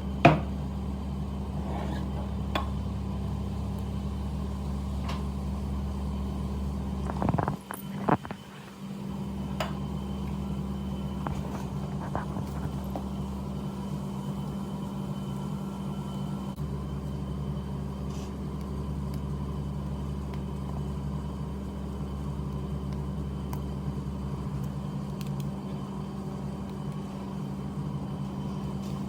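Steady electric machine hum with a low rumble, broken by scattered light clicks and taps. There is a sharp click just after the start, and a couple of louder knocks about seven to eight seconds in, after which the low rumble briefly drops away.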